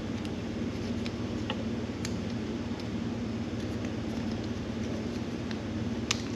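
Steady mechanical hum with a constant low tone, under a few faint clicks and a sharper snip near the end as small cutters trim heat-shrink tubing.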